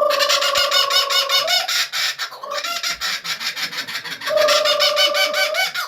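Laughing kookaburra in its rapid, harsh cackling laugh, about ten notes a second. A person's trilled imitation, a lip trill on a held pitch, is heard twice over it: at the start and again about four seconds in, to set the bird off.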